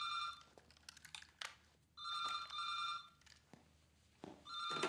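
Telephone ringing in a repeating pattern of rings about a second long. One ring ends just after the start, a full ring comes about two seconds in, and another begins near the end.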